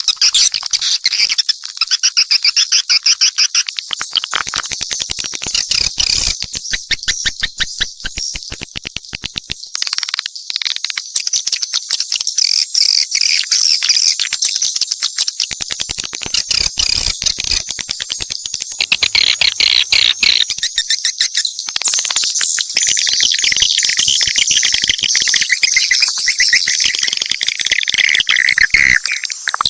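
Swiftlets twittering: a mixed swiftlet call-sound track of dense, rapid high-pitched chirps and trills with no pauses, of the kind played to lure swiftlets to a nesting house.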